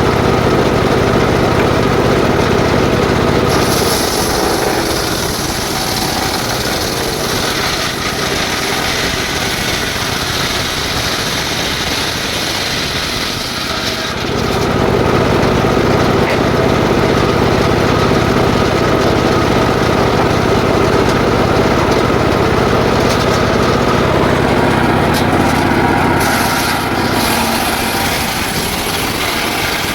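Engine-driven circular saw running and cutting jackfruit wood into boards. Its sound changes about 4 seconds in, with more hiss and a little less level, then grows louder again about 15 seconds in as the load on the blade changes.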